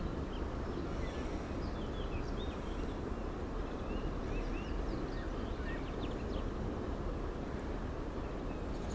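Steady low outdoor background noise with faint, quick bird chirps scattered through it.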